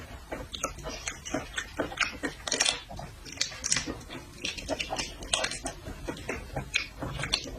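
Close-up eating sounds from seafood: wet chewing and lip-smacking, heard as many short, irregular clicks and smacks.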